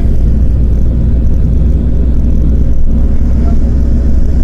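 Steady low rumble of engine and road noise from a moving vehicle, heard from inside it.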